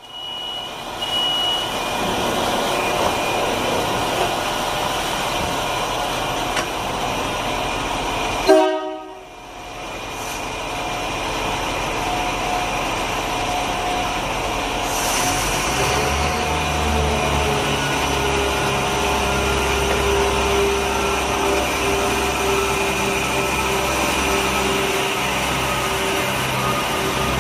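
Irish Rail 22000 Class diesel multiple unit standing with its engines humming, then sounding a short horn toot about eight and a half seconds in. About fifteen seconds in, its diesel engines throttle up to a deep rumble with a steady droning tone as the train pulls away from the platform.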